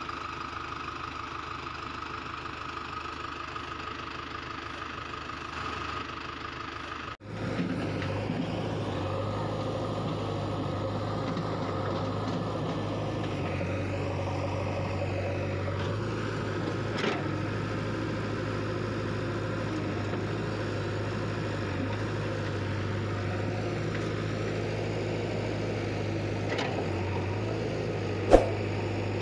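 Steady engine running sound, as of a tractor idling. About seven seconds in it breaks off abruptly and becomes a louder, deeper steady engine hum. A single sharp knock comes near the end.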